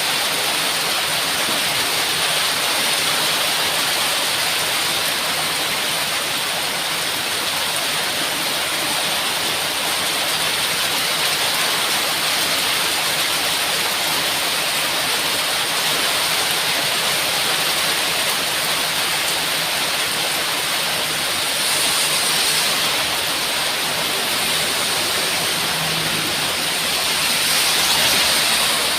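Heavy rain falling steadily, a dense even hiss, swelling briefly louder near the end.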